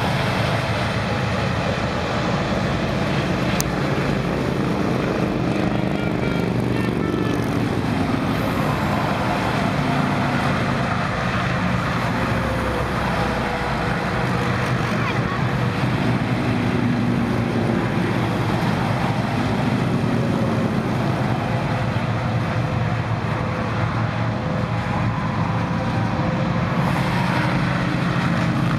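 Steady interstate traffic passing: tractor-trailers and motorcycles, a continuous mix of engine and tyre noise with engine pitches slowly rising and falling as vehicles go by.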